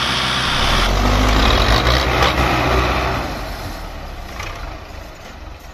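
Tractor diesel engines labouring to pull a loaded sugarcane trolley, a deep low rumble that eases off about three seconds in.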